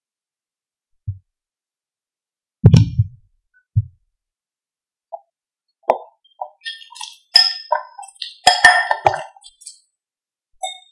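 A few dull, low thumps, then a stainless steel potato masher mashing banana in a glass bowl: soft squelches with sharp clinks of metal striking the glass.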